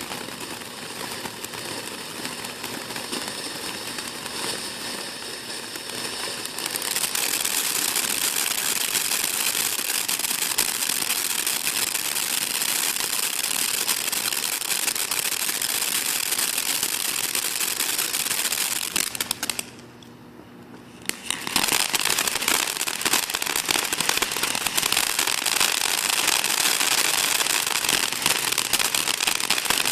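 Consumer fountain firework spraying with a steady hiss thick with fine crackling. It grows louder about six seconds in, nearly dies away briefly about two-thirds through, then comes back just as loud.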